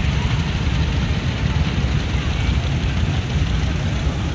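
Busy outdoor market hubbub: a steady low rumble with faint voices of people in the crowd mixed in.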